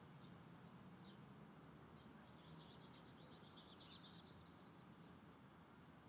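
Faint high twittering of a small songbird: a few scattered chirps, then a rapid chattering run of notes from about two seconds in that lasts some two seconds, over a low steady background hiss.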